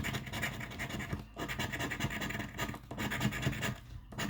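Rapid scraping as the coating is scratched off a paper scratch-off lottery ticket, in short runs with three brief pauses.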